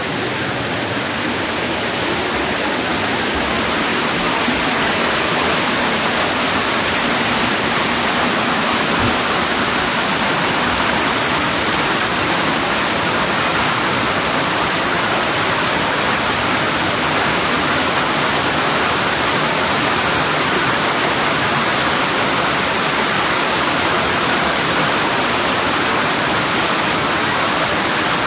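Muddy floodwater rushing through a building's hallway, a loud, steady wash of fast-moving water.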